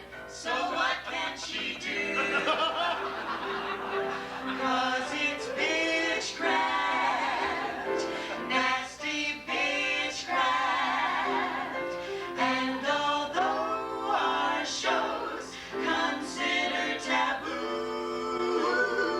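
Live cabaret singing with piano accompaniment: show-tune vocals held over the piano.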